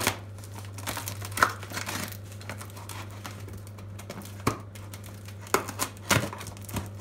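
Plastic packing tape being picked at and torn off a cardboard shipping box: intermittent crinkling with a scattering of sharp rips and crackles.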